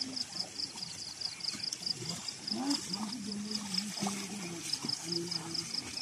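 An even, high-pitched chirping, about four to five chirps a second, runs throughout. From about two and a half seconds in, a person gives long, drawn-out calls.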